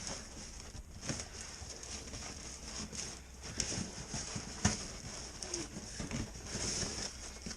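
Parcel packaging being handled and pulled apart by hand: rustling with scattered knocks and clicks, the sharpest a little after halfway.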